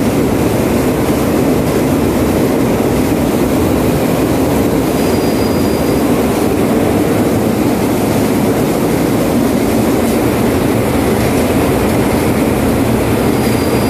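Steady, loud noise of a moving vehicle, strongest in the low-middle range, with a brief faint high squeal about five seconds in and again near the end.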